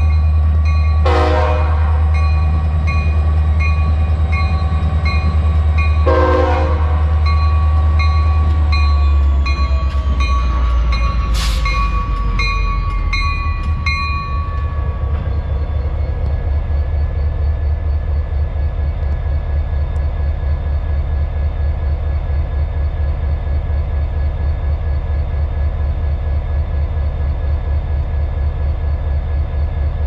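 Norfolk Southern SD40-2 diesel locomotive blowing its multi-note air horn as a grade-crossing warning, the chord dropping in pitch as the engine passes and cutting off about halfway through, with three brief noisy bursts during the horn. Under it and after it, the deep rumble of the locomotive's EMD 16-cylinder two-stroke diesel and an even pulsing as the train rolls by.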